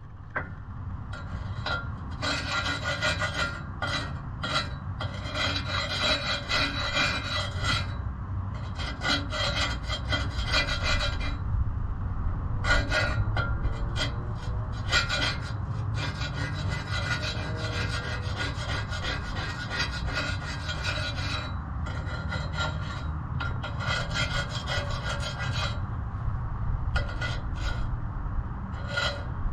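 Gasket scraper scraping dirt off a steel exhaust pipe to clean the surface for the O2 sensor bung gasket. It goes in runs of rapid rasping strokes, with short pauses between them.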